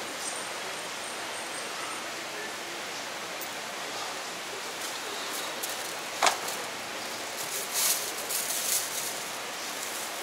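Steady background hiss as a stainless-steel steamer pot of braised pork offal is handled, with one sharp knock about six seconds in and a few light clinks and rustles around eight seconds.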